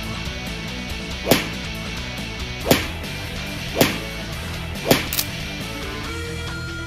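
Four sharp whip-like cracks about a second apart, each rising quickly to its peak, with a smaller crack just after the last, over background guitar music.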